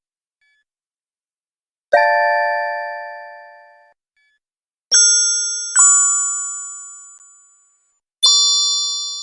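Bell-like metallic chime struck four times, each stroke ringing and fading over about two seconds; the second and third strokes come about a second apart.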